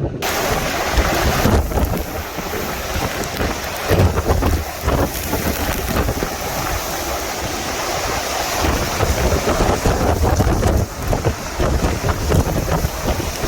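Heavy rain and strong storm wind, a loud, dense rushing that swells and dips in gusts, with wind buffeting the microphone.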